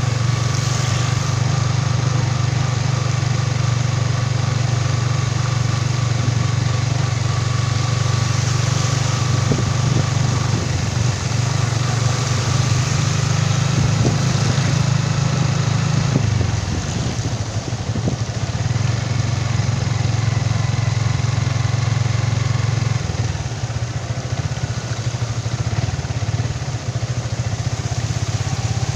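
A motorcycle engine running steadily while riding, with a continuous hiss of tyres through shallow floodwater; the engine note shifts about halfway through and again later.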